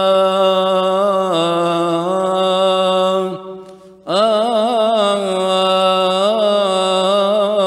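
A solo male cantor chanting a long, melismatic Coptic liturgical melody on drawn-out vowels, with wavering ornamental turns. The line fades out a little after three seconds, and after about a second's breath he resumes strongly.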